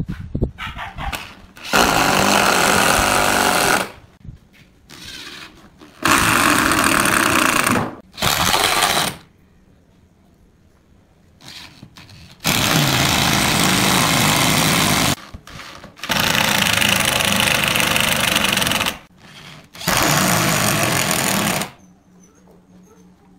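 Corded electric drill driving screws into pine, running in about six bursts of one to three seconds each with short pauses between.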